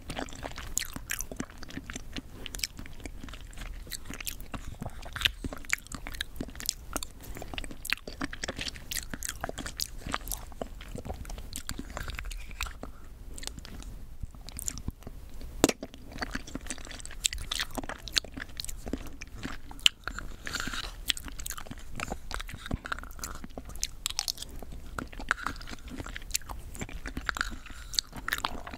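Close-miked chewing of pudding with chewy coconut jelly pieces: a steady, irregular run of wet mouth clicks and smacks.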